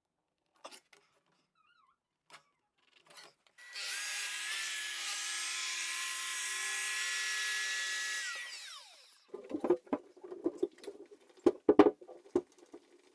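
An electric saw runs steadily for about five seconds, cutting the head of a wooden door, then spins down with a falling whine. A run of knocks and taps follows as the door is handled and fitted.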